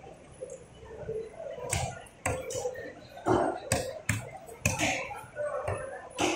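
Cleaver blade chopping through red snapper onto a thick wooden log chopping block: a run of sharp knocks, irregularly spaced, beginning about two seconds in.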